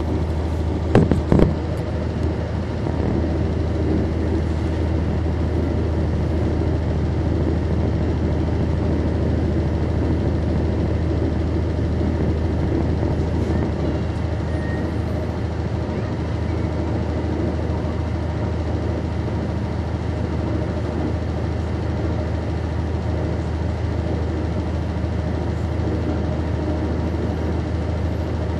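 A 1999 NovaBus RTS transit bus's Cummins ISC diesel engine, heard from on board, running steadily at low revs: a constant low hum that neither rises nor falls. A few sharp clicks come about a second in.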